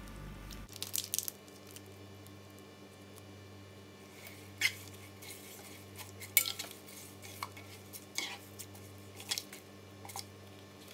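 A spoon clinking and scraping lightly against the rice cooker's inner pot as margarine goes in with the rice, in a handful of scattered short clinks.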